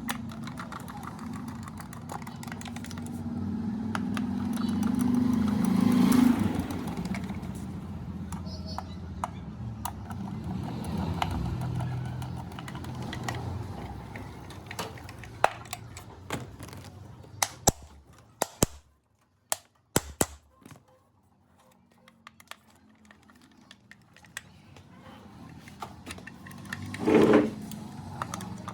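Clicks, taps and light rattles of ceiling fan parts being handled. A low hum swells and fades in the first several seconds, and there is a louder knock near the end.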